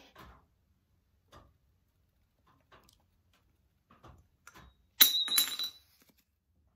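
A setting block falls out of a hand gripper and clatters down. It makes a sharp clink with a ringing note about five seconds in, then a second hit half a second later. Before that, a few faint small clicks come from the gripper in the hand.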